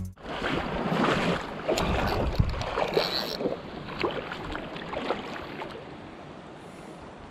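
Shallow river current running over a riffle, a steady rush of water. Irregular clicks and knocks sound over it for the first several seconds and die away, leaving only the even water noise.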